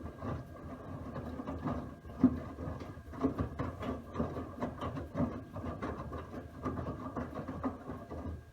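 Miele W1 front-loading washing machine tumbling a load in its drum during the wash: a steady churning with knocks and thumps about once a second as the laundry drops. It stops abruptly near the end.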